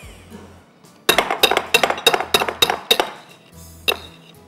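A metal utensil clinking against a mixing bowl: about ten quick, ringing taps over two seconds, starting about a second in, then one more near the end.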